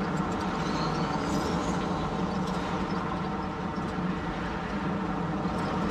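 Hyundai Grand Starex van on the move: steady engine hum and road noise heard from inside the cabin.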